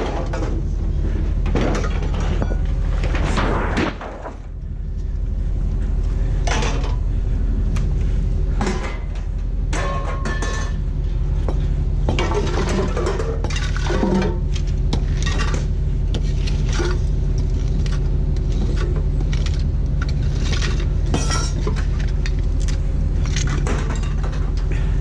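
Pieces of scrap metal clanking and clattering again and again, over a steady low engine hum.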